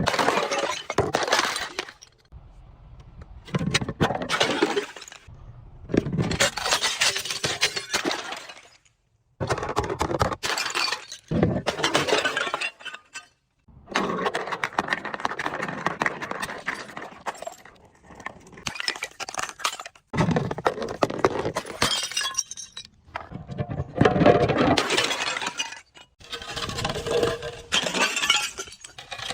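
Glass bottles breaking and being crushed, in repeated bouts of crunching, shattering and clinking shards with short pauses between.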